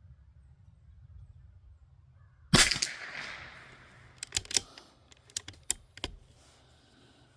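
A single shot from a Bergara B14R bolt-action .22 LR rifle firing Monarch bulk ammunition about two and a half seconds in, with a short echoing tail. A second or so later comes a quick series of sharp metallic clicks as the bolt is worked to eject the case and chamber the next round.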